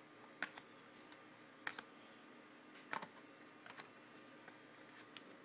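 A few faint, scattered clicks and taps of trading cards being handled and flipped through, about five over a few seconds.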